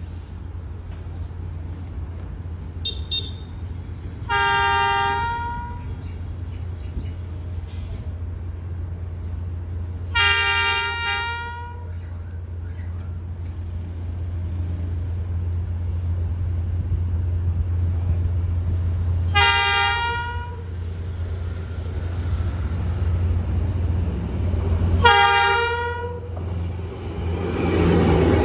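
Diesel train locomotive's horn sounded four times, each blast about a second long and several seconds apart, over a steady low engine rumble that grows louder as the train approaches. Near the end the rushing noise of the passing train rises in.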